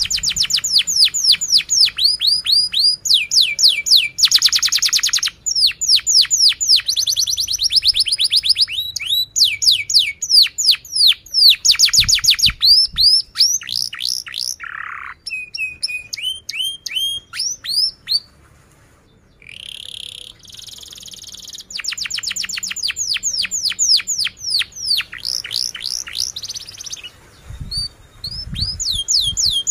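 Domestic canary singing a long song of fast trills, each made of many quick falling notes repeated in rolls, with a brief pause a little past the middle before it starts again.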